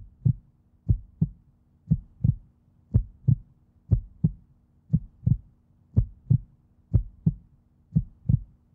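Heartbeat sound effect: doubled low thumps, about one pair a second, over a faint steady hum.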